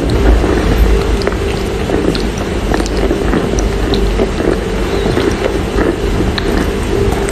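Close-up chewing of wet Chinese loess clay: many small crunches and wet clicks over a steady hum.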